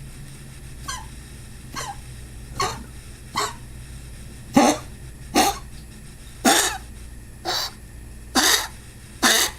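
A pet coughing in a run of about ten short, harsh, breathy hacks, roughly one a second, growing louder toward the end.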